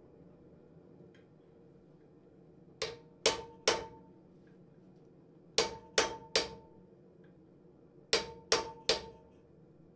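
Hammer striking a hand-held chisel set on hot iron lying on an anvil: three groups of three sharp metallic taps, each with a short ring, starting about three seconds in.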